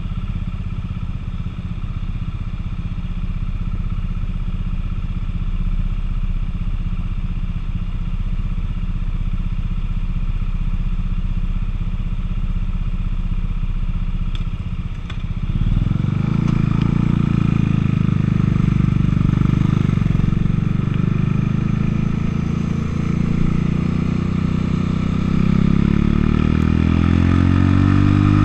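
Buell motorcycle engine idling steadily, then about halfway through it revs up and pulls away, its note rising as it accelerates.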